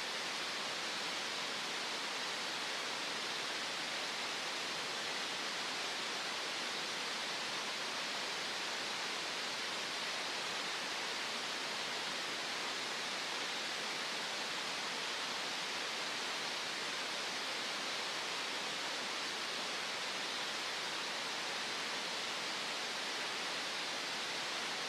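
Green noise: a steady, even hiss with no rhythm, tones or changes.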